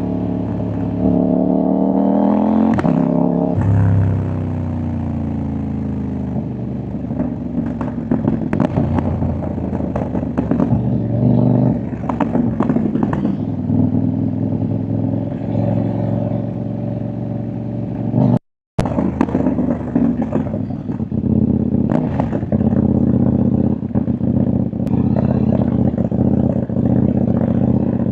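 CFMoto 800NK parallel-twin motorcycle under way: the engine revs up about a second in, then drops back and runs on through the gears, with sharp exhaust pops and crackles as it comes off the throttle. The sound cuts out completely for a moment about two-thirds of the way through.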